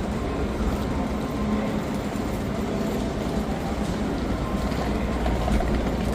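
Eurostar train at the platform, a steady low hum and rumble.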